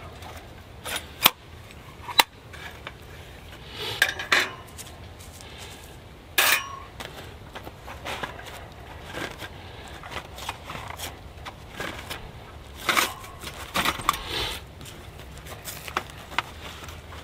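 Stainless-steel UCO Flatpack grill being handled and slid into its canvas sleeve: scattered light metal clinks and rattles of its folded plates and grate, with a few sharper clicks.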